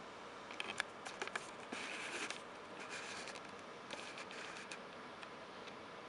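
Handling noise: scattered light clicks and two short scratchy rustles as the camera is moved in close over a paper magazine.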